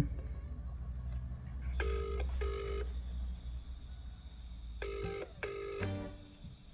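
Outgoing phone call ringing out: the British double-ring ringback tone, two pairs of short rings about three seconds apart, waiting for the other end to answer.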